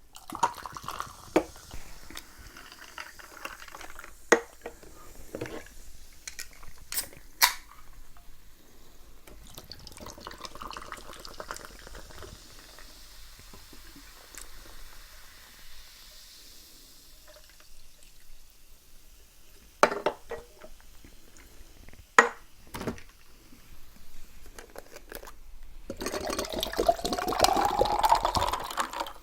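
A drink poured into a cup or glass near the end, its pitch rising as the vessel fills, after scattered sharp clicks and taps of containers being handled.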